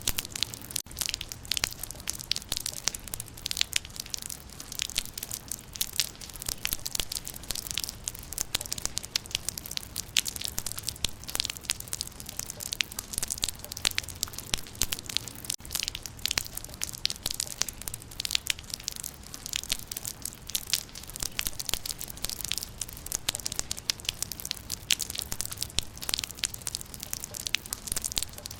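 Steady rain pattering on leaves: a dense, irregular spatter of many small sharp drops hitting foliage, over a faint low rumble.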